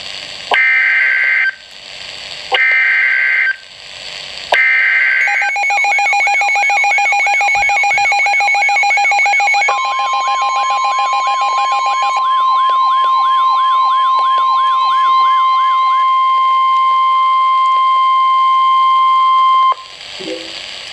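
Emergency Alert System broadcast alert: three short screeching data bursts about a second apart (the digital header), then warbling alarm tones layered over a steady tone. These give way to a single steady high alert tone held for about ten seconds, which cuts off suddenly near the end.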